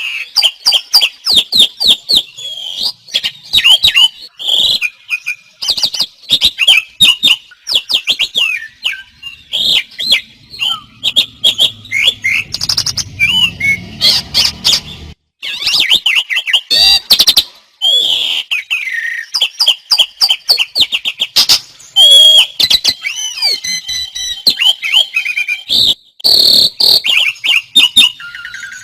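Several songbirds singing hard at once, their fast chirps, trills and whistles overlapping without a break.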